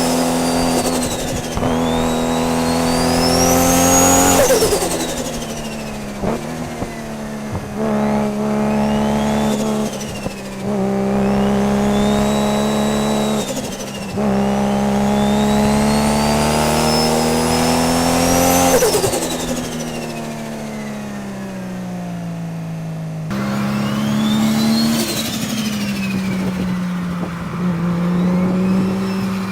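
Tuned 900 hp Nissan R32 GT-R's turbocharged straight-six running and pulling, with a high turbo whistle that rises and falls about seven times as the throttle is opened and closed, and short clicks in between.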